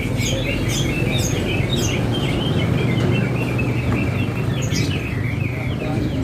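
Cucak ijo (green leafbirds) singing in a song contest: a fast, continuous run of short chirps and trills, over a steady low rumble.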